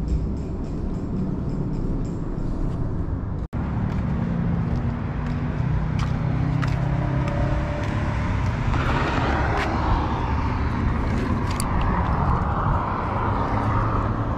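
Road traffic passing on the road over the bridge: a steady low rumble of cars, swelling as vehicles go by in the later part, with a few light clicks in the middle and toward the end.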